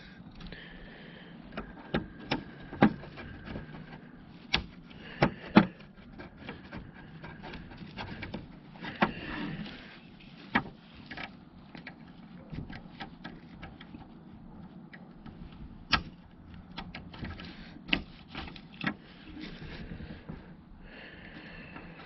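Irregular small sharp clicks and faint scraping from the plastic housing and contacts of a 2013 Camaro 6-way power seat switch as a pick tool pries it apart.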